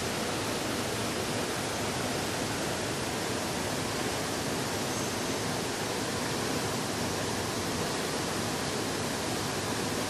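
River water rushing below, a steady, even hiss with no breaks.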